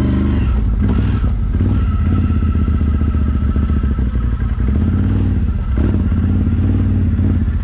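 ATV engine running close by, its engine speed rising and falling a few times as the throttle is worked.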